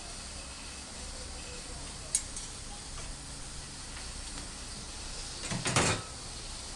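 A steady hiss from the lit gas tandoor, with a single sharp metal click about two seconds in and a brief clatter of metal on metal near the end, as tongs and the steel tandoor are handled.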